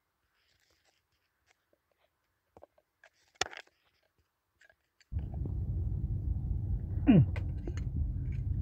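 A few light metallic clicks from an Allen key and spanner on the excavator hydraulic pump's compensator adjusting screw as it is turned a quarter turn. About five seconds in, a steady low rumble starts suddenly and carries on, with a short falling squeak near the end.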